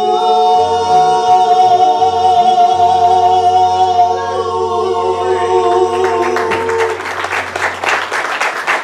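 Gospel singers hold the final note of a song over a low sustained bass, and the note ends about seven seconds in. Clapping and applause start about six seconds in and run on.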